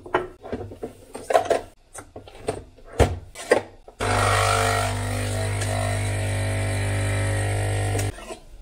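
A few clicks and knocks as a mug is set under a Nespresso capsule coffee machine, then the machine's pump starts suddenly and runs with a steady, loud hum for about four seconds while brewing, cutting off abruptly near the end.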